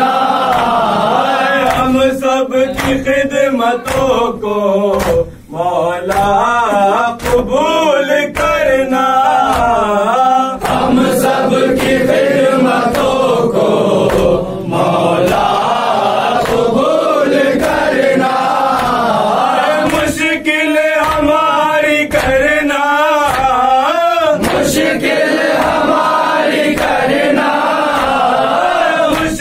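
A group of men chanting a nauha, a Shia lament, in unison, with repeated sharp slaps of hands on chests (matam) over the singing.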